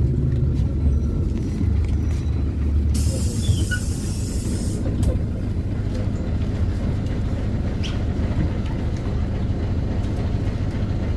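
A PAZ 320414 bus's engine running steadily, heard from inside the passenger cabin. About three seconds in, a loud hiss of compressed air lasts about two seconds and cuts off.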